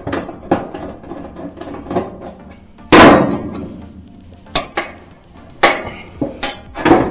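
Hand tools knocking and clanking against the sheet-metal base of a dryer while a drum support roller is taken apart, about seven sharp strikes. The loudest, about three seconds in, rings on for about a second.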